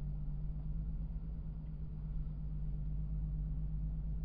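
Nissan 370Z's V6 engine running with a steady low hum, heard from inside the cabin through the dashcam's microphone.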